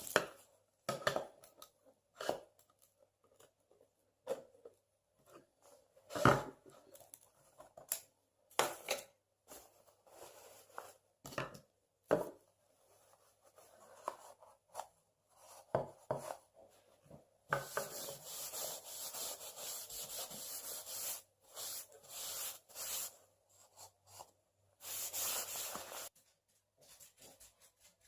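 Scattered knocks and clicks from a wall mirror being handled and shifted against the wall, with two longer stretches of scraping, the longer one a little past the middle and a shorter one near the end.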